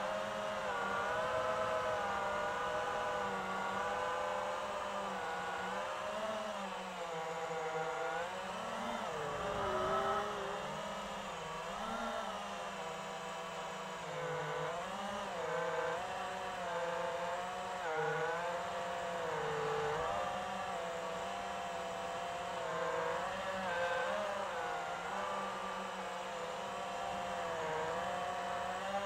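FPV quadcopter's motors and propellers whining in flight, the pitch rising and falling with every throttle change.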